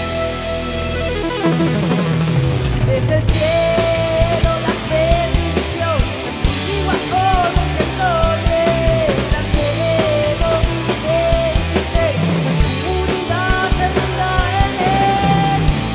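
Rock band playing with a full drum kit hitting kick and snare, plus bass and electric guitars. About three seconds in, a sliding, bending lead melody enters over the band.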